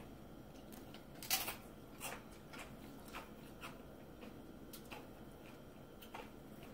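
Tortilla chip loaded with guacamole being bitten and chewed: a string of faint, irregular crunches, the loudest about a second in.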